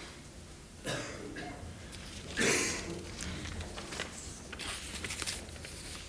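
A single short cough about two and a half seconds in, over a low room hum, with a softer breathy sound about a second in and a few faint clicks and rustles near the end.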